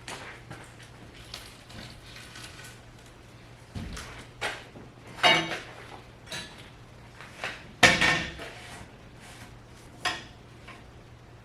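Irregular knocks and clanks of hard objects being handled, about six in all, the loudest in the middle of the stretch, over a faint steady hum.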